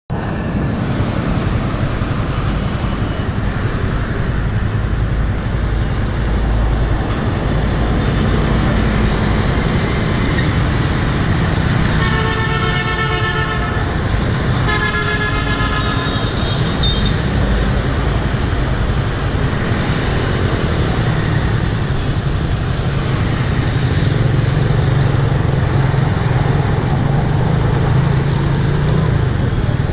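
Road traffic heard from a moving motor scooter: a steady engine, road and wind rumble, with a vehicle horn honking twice, each honk about a second and a half long, around 12 and 15 seconds in.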